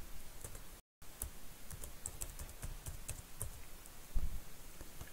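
Computer keyboard keys typed in scattered light clicks as a sudo password is entered, with a soft low thump a little after four seconds. The sound drops out completely for a moment about a second in.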